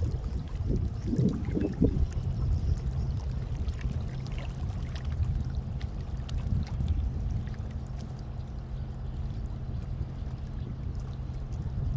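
Small waves lapping and trickling against the rocky canal bank, over a steady low drone from the bulk carrier Federal Ruhr's engine.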